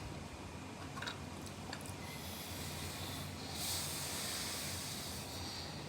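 Faint eating noises of hot instant cup noodles: small clicks and a hissing stretch starting about three and a half seconds in, over a steady low room hum.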